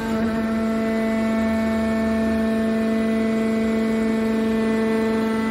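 Hydraulic power unit of a scrap-metal baler running: a steady, even hum with a strong constant pitch.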